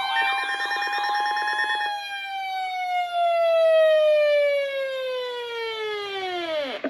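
Siren wailing: one pitched tone with many overtones rises slightly, then falls steadily and drops away sharply near the end, like a siren winding down. A faster warbling siren tone overlaps it for the first couple of seconds.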